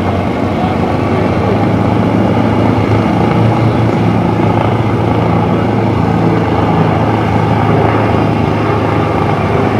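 Warbird piston engines running steadily at idle: the twin Allison V-12s of a P-38 Lightning together with a P-51 Mustang's V-12, a dense, even rumble with a strong low hum.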